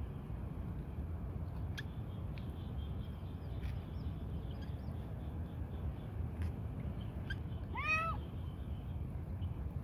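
A cat meows once, a short rising-and-falling call near the end, over a steady low background hum, with a few faint clicks earlier.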